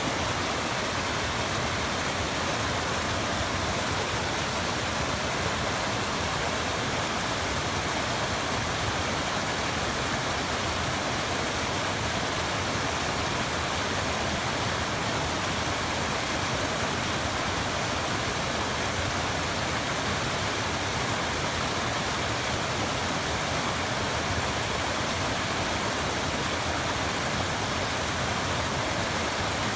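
Mountain stream rushing, a steady, unbroken water noise.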